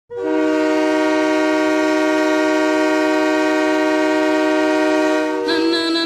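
Ice hockey goal horn of HC Fribourg-Gottéron: one loud, steady multi-tone horn blast held for about five seconds.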